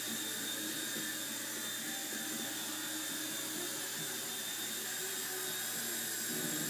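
Micro electric radio-controlled helicopter in flight, its small motor and rotor blades giving a steady, even whine.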